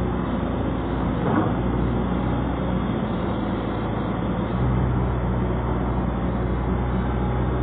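Pontoon-mounted excavator's diesel engine running steadily, its low hum easing a little about a second and a half in and returning about halfway through.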